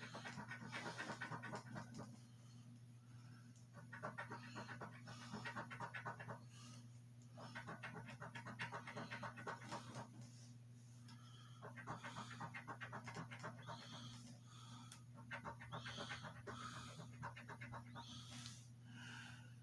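A coin scratching the coating off a scratch-off lottery ticket: bouts of rapid short strokes, each about two seconds long, with brief pauses between. A steady low hum lies under it.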